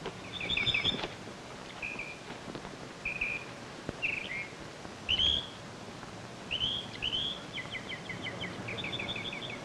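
Forest birds singing: separate short chirps and whistled notes, some sliding up or down, then a fast trill of repeated paired notes over the last two seconds or so, against a steady faint hiss.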